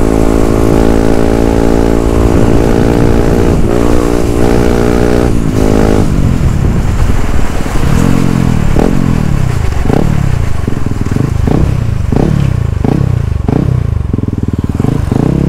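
Yamaha WR155R's single-cylinder four-stroke engine under way: a steady cruise for about six seconds with two quick gear changes, then a string of about ten short revs, each rising and falling, roughly one every three-quarters of a second, as the bike slows.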